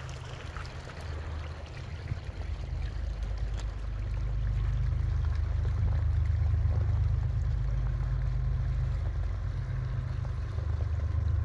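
Water trickling from a stone-arch canal culvert into a partly frozen pool, under a steady low rumble that grows louder about four seconds in.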